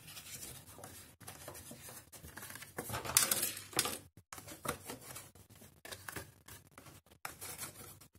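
Cardstock rustling and scraping as a small paper box is folded by hand and its flaps tucked in, in irregular short strokes, loudest about three seconds in.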